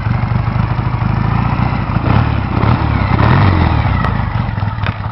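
1969 BSA Lightning's 650 cc parallel-twin engine idling, picking up briefly with a blip of the throttle about two seconds in, then settling back to idle.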